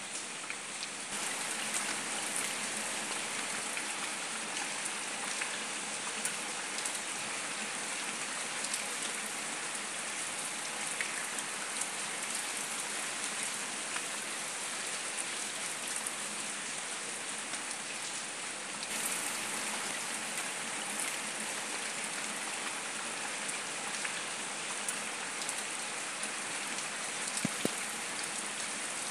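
Steady rain falling on wet concrete paving stones: an even hiss, with many single drops ticking as they hit the pavers.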